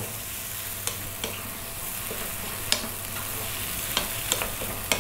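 Sausage rounds, onion and cooked brown lentils sizzling in a non-stick frying pan while a wooden spoon stirs them, with a steady frying hiss and about six sharp knocks of the spoon against the pan at irregular moments.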